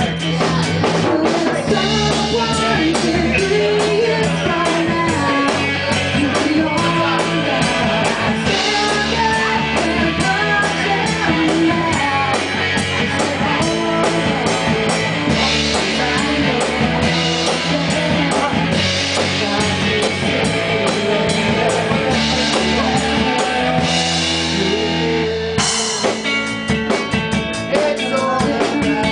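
Live rock band playing: a woman sings into a microphone over electric guitars and a drum kit.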